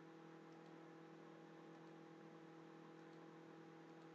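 Near silence: a faint steady electrical hum, with a few very faint computer-mouse clicks.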